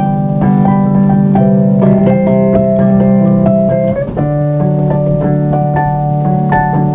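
Instrumental passage of a slow song played on a piano-style keyboard: held low chords under repeated higher notes, with a chord change about four seconds in.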